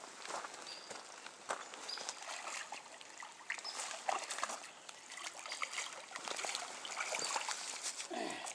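Small splashes and trickling water with scattered light clicks, as a hooked white bass is brought in from the water. A few short, high chirps sound now and then.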